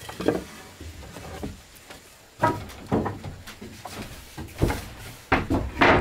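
Wooden boards being handled, knocking several separate times against a plank floor, the loudest knock near the end.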